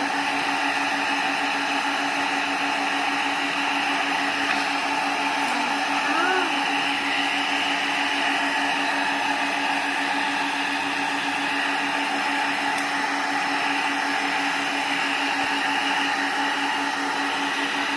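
Small handheld hair dryer running steadily, a constant motor hum under rushing air, blowing into a metal bowl of chocolate pieces to melt them.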